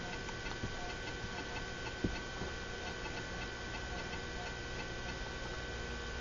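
Macintosh Plus's 800K floppy drive faintly ticking as it reads the Setup disk, over a steady hum, with a single soft knock about two seconds in.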